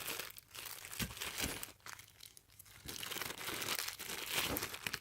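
Plastic packaging bag crinkling as it is handled, in two stretches of rustling with a short pause between.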